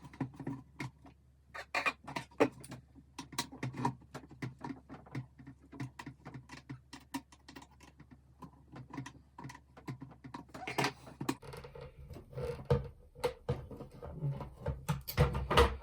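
Irregular small clicks and taps from handling plastic model-kit parts and a small screwdriver while a screw is loosened and a part is worked into place.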